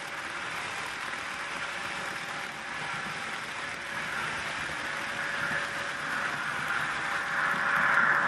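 HO-scale model trains running over the track, a steady rolling noise with a faint hum. It grows louder over the last few seconds as a red diesel locomotive passes close on the near track.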